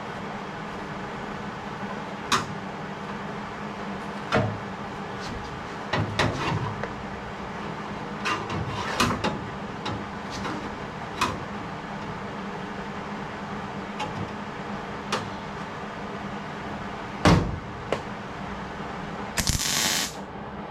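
Scattered knocks and clicks of work on metal over a steady hum, the loudest knock about three seconds before the end, followed by a brief hissing burst just under a second long.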